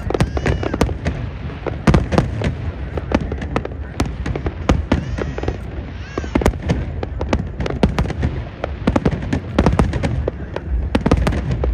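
Aerial fireworks going off in a rapid, continuous barrage: many overlapping sharp bangs and crackles over a constant low rumble.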